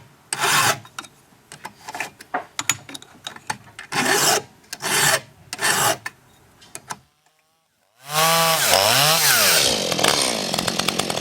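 Several hand-file strokes rasping on a chainsaw chain, with small clicks between them. After a short silence a chainsaw engine sounds suddenly, its pitch rising and falling before it holds high and steady.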